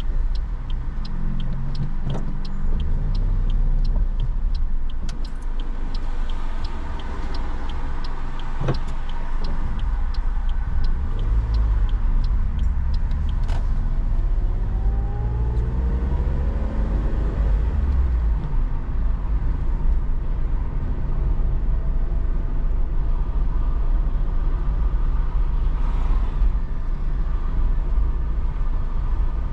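Car driving, heard from inside the cabin: a steady low road and engine rumble. Evenly spaced sharp ticks run for the first third. Midway the engine note rises as the car accelerates.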